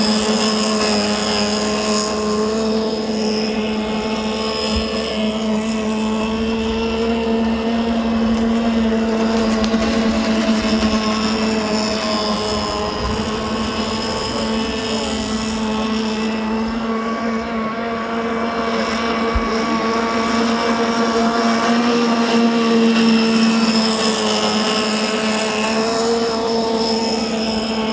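CMB 26cc two-stroke engine of a Pacer 70 RC racing boat running flat out, a steady high-pitched buzz whose pitch holds nearly constant throughout.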